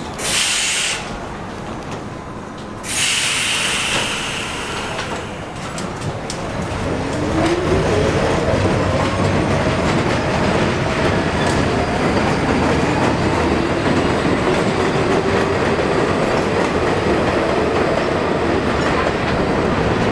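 Vintage R33/R36 SMEE subway train pulling out: two short loud hisses of air in the first few seconds, then the traction motors whine, rising steadily in pitch as the train accelerates, over wheels rumbling and clacking on the elevated track.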